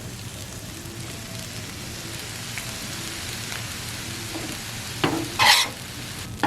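Fried rice and ground beef sizzling steadily on a hot Blackstone flat-top griddle, with a brief louder scrape and hiss about five seconds in.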